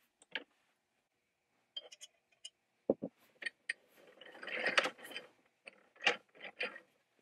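Metal parts of a cast-iron James Swan beam drill being handled and fitted: scattered clicks and knocks, two loud ones about three seconds in, and about a second of scraping and rattling around the gears just past the middle.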